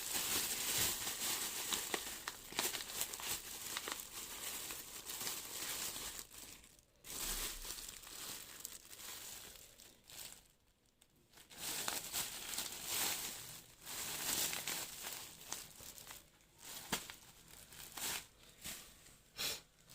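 Packaging being handled and unwrapped, crinkling with some tearing, in irregular bursts with two short pauses.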